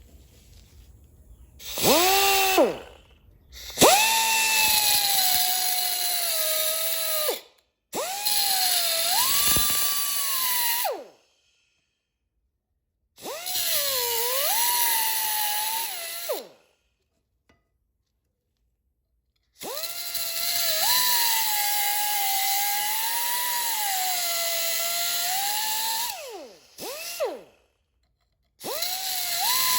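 Grinder with a cutting wheel cutting into the steel bearing race on an axle shaft, in about six separate runs. Each run spins up into a high whine that sags and wavers as the wheel bites, with a hiss of grinding over it, then winds down.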